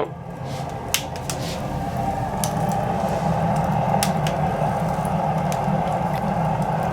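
Wood fire in an open fireplace catching on fruit-crate kindling and logs: a steady rush of flames with sharp crackles and pops every second or so.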